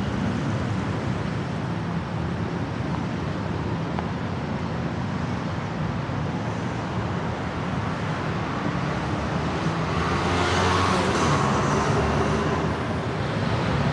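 Busy city road traffic: motorbikes and cars running past in a steady wash, with one vehicle passing louder about ten seconds in.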